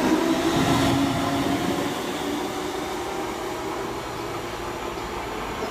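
DB Class 425 electric multiple unit: its electric drive whine, several pitched tones together, fades out over the first couple of seconds, leaving a quieter, steady running noise with a low hum.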